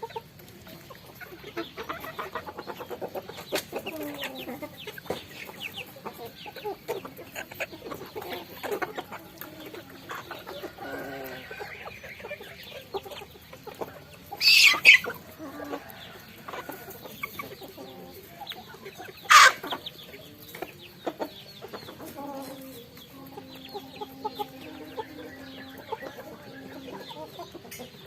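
Flock of chickens clucking while pecking at rice, with many quick small taps. Two much louder, sharp sounds stand out about halfway through and a few seconds later.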